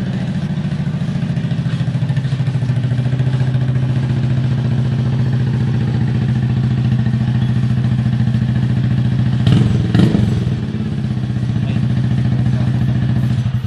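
Yamaha Mio 125S scooter's single-cylinder four-stroke engine running through an aftermarket Akrapovic Hexa-tip exhaust with no silencer, a loud, steady note with one brief rev about ten seconds in. The sound cuts off suddenly near the end.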